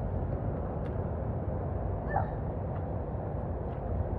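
Steady outdoor background rumble and hiss, with a brief faint high falling call about two seconds in.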